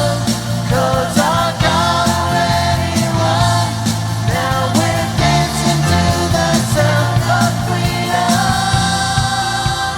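Upbeat contemporary Christian worship song played by a band, with a steady beat.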